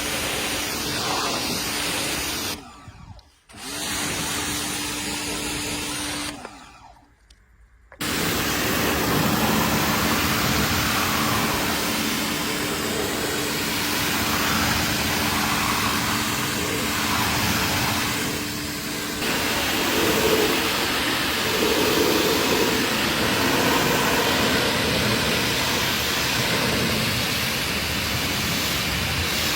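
Car-cleaning machine running with a steady hiss, cutting out briefly twice in the first eight seconds.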